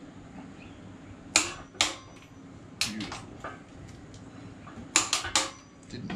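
Sharp metallic clicks and clanks of a torque wrench, extension and socket being worked on an engine block's main cap bolts: two about a second in, one near the middle, then three quick ones near the end.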